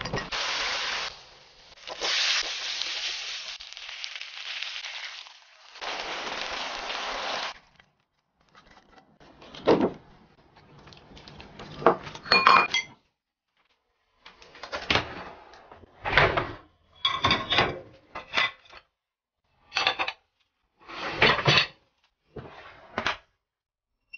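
Eggplant chunks tossed by hand with starch in a glass bowl, a rustling scrape that runs for several seconds. Then plates, bowls and chopsticks clink and clatter in a string of short, separate knocks as the table is cleared.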